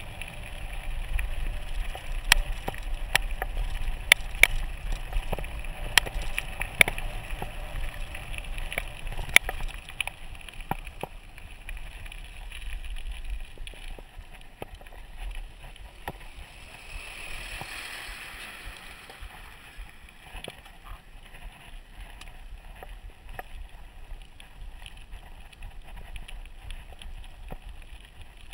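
Mountain bike rolling down a gravel track: tyre noise on loose gravel, sharp knocks and rattles from the bike over bumps, and low wind rumble on the microphone, rougher and louder in the first ten seconds or so. About two-thirds of the way through, a broad hiss swells and fades as an oncoming truck passes.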